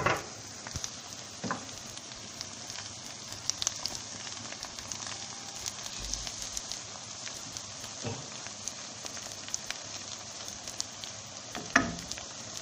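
Chopped spinach with garlic and beaten egg frying in oil in a pan: a steady sizzling hiss full of small crackles. A wooden spoon stirs it, knocking against the pan a few times.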